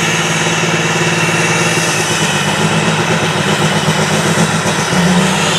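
Western Star semi truck's turbocharged diesel engine held at high revs through a burnout, its rear drive tires spinning and smoking on the pavement. The engine note is steady, wavering slightly near the end.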